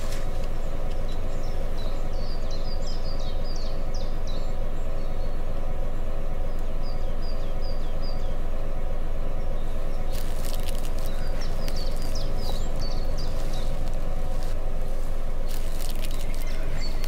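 Small birds chirping in short repeated bursts over a steady low rumble, with a few brief rustles about ten and fifteen seconds in.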